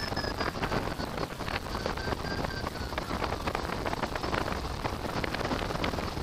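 Wind buffeting a hang glider's onboard camera microphone in flight, a dense crackling rush. Under it, a variometer beeps rapidly, its pitch sinking slowly and then rising near the end: the climb tone of the glider going up in a thermal.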